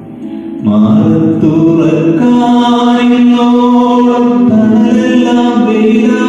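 A man singing a slow melody into a handheld microphone with long, held notes. He starts softly and rises to full voice less than a second in.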